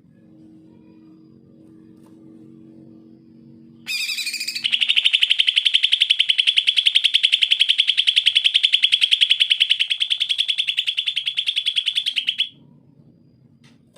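Male cucak ijo (green leafbird) singing: about four seconds in, a short call runs straight into a loud, rapid, even trill that holds steady in pitch for about eight seconds and cuts off suddenly.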